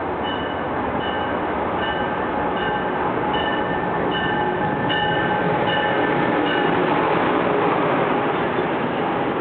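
Amtrak Acela Express train running through a station, a steady rush and rumble of wheels on rail that grows louder as it comes by. Its bell rings about once every 0.6 s and stops about six and a half seconds in.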